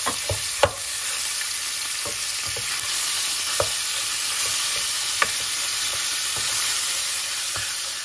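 Minced beef sizzling as it fries in hot oil in a nonstick saucepan. A plastic spoon stirs and breaks up the meat, knocking against the pan a few times; the sharpest knock comes under a second in.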